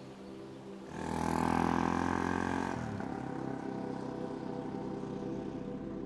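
Suzuki DRZ400 single-cylinder four-stroke dual-sport motorcycle engine running. A loud surge about a second in lasts about two seconds, then the engine settles into a steadier drone.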